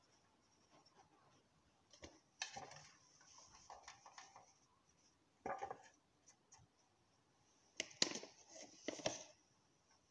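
Faint kitchen handling sounds as flour is spooned onto a metal baking tray: a scattering of short knocks and scrapes, the loudest cluster about eight seconds in.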